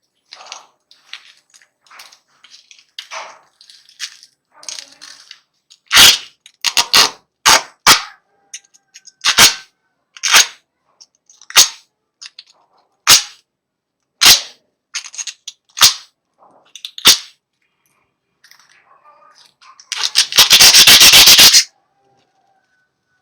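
A series of sharp knocks or taps from hand-tool work on a saw, about one every second or so. Near the end comes a quick burst of rapid clicks lasting under two seconds.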